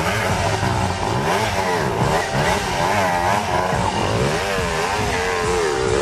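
Dirt bike and ATV engines revving, their pitch rising and falling over and over.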